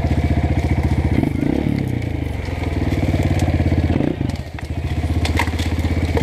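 Honda CRF 230F's single-cylinder four-stroke engine running under changing throttle on a dirt trail. The engine note shifts about a second in, drops off briefly about four seconds in and picks up again, with a few sharp clicks near the end.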